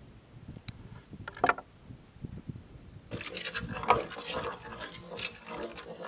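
A knife cutting dates on a wooden cutting board gives a few sharp knocks, the loudest about a second and a half in. From about halfway, a wooden spoon stirring thin flour batter in a metal pot makes a continuous, busy scraping and liquid sound.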